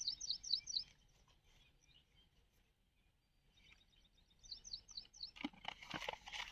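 A small bird calling: a quick run of short, high chirps, repeated about four seconds later. Near the end there is a stretch of rustling and clicks.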